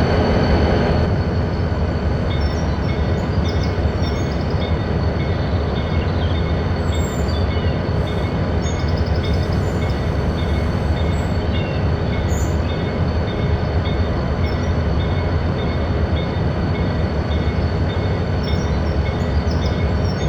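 Train passing with a steady low rumble while a locomotive bell rings repeatedly, about once a second. Steady high tones stop about a second in.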